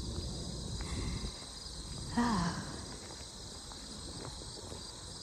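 Steady high-pitched chorus of field insects in a summer meadow, running throughout over a low rumble, with a brief voice sound about two seconds in.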